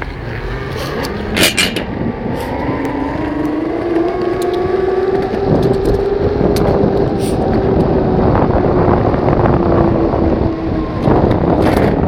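Electric longboard's motor whining as the board pulls away. Its pitch rises over the first few seconds, holds steady, then dips slightly near the end, over a steady noisy rumble. A sharp knock comes about a second and a half in.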